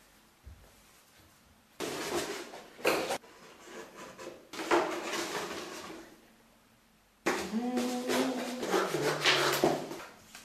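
A body shifting inside a clear plastic tube: bare skin rubbing and squeaking against the plastic, with knocks of limbs against it, in three bouts, the last with a short pitched squeak.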